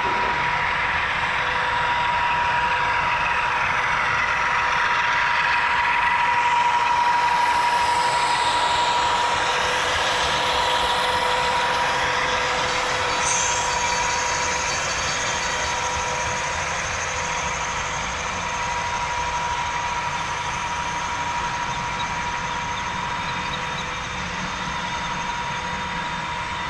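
HO scale model train running on the layout's track, its DCC sound decoder playing diesel locomotive engine sounds through the model's small onboard speaker over the rumble of the wheels. The sound is steady, swelling a little about seven seconds in and then slowly easing off.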